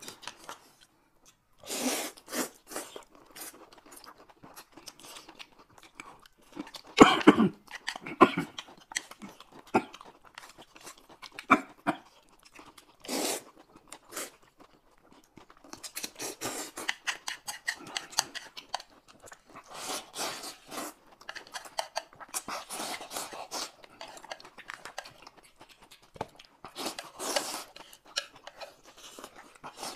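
Close-up eating sounds: noodles slurped, with chewing and lip smacking in irregular bursts, the loudest about seven seconds in. Near the end, bites into a piece of fried meat.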